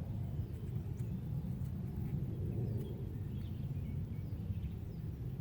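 Outdoor background noise: a steady low rumble, with a few faint high chirps scattered through it.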